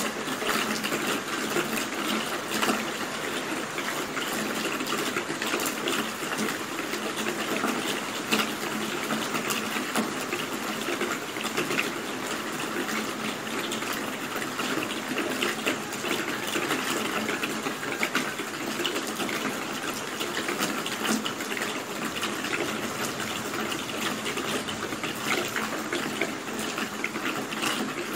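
Steady rain: an even hiss of falling water with many individual drops ticking sharply within it.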